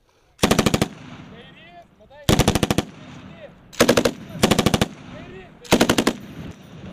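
Belt-fed machine gun firing five short bursts of about half a second each, each burst a quick run of rounds.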